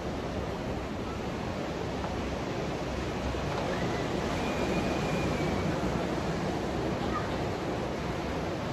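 Ocean surf breaking on the shore, a steady rush of waves that swells slightly around the middle.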